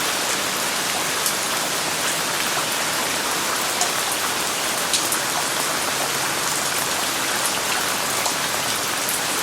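Steady rain falling, a dense even hiss with scattered individual drops ticking sharply.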